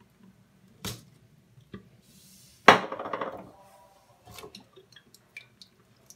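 Kitchen clatter of glass oil bottles and a metal pressure-cooker pot being handled. A sharp click comes about a second in, then a louder clink that rings briefly near the middle, followed by a few light knocks.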